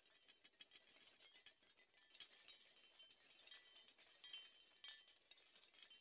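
Shell wind chime: small shells clinking against each other in quick, irregular light taps with short high ringing notes. It is faint, and it gets busier from about two seconds in.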